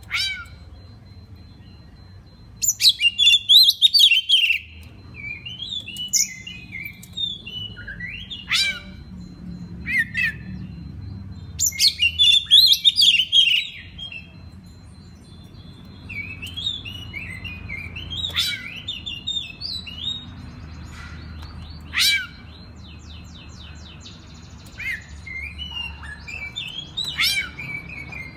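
Oriental magpie-robin (kacer) singing a varied song of sharp whistled chirps and sweeping notes, with two loud, rapid trilled phrases, one a few seconds in and another around twelve seconds.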